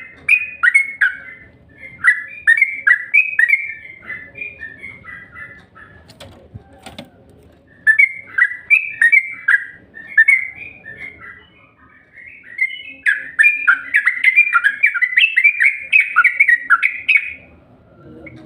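Yellow-vented bulbul (trucukan) singing: long runs of quick, bubbling chirps in three phrases, the last and busiest ending near the end.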